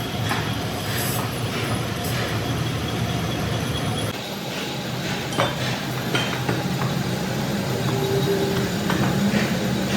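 Workshop machinery running steadily, with occasional sharp metallic clinks; the sound changes abruptly about four seconds in.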